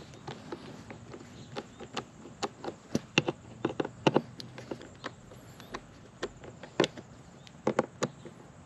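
Irregular clicks and taps of a hand screwdriver working screws on an outdoor GFCI receptacle's cover plate. The sharpest clicks come in a cluster three to four seconds in and again near the end.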